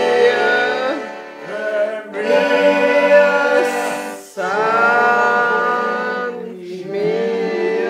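Man singing a Wienerlied (Viennese folk song), accompanying himself on an accordion. The song moves in long held phrases with short breaks between them.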